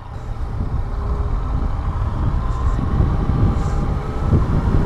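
Yamaha FZ-09 inline-triple motorcycle on the move, heard from a rider-mounted camera: wind buffeting the microphone over the engine's low drone, growing louder over the few seconds.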